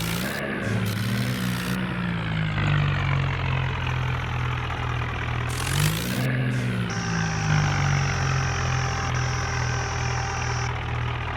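A motor vehicle engine running steadily, its pitch swooping up and back down briefly near the start and again about six seconds in. A thin steady high tone sounds alongside it for a few seconds in the latter half.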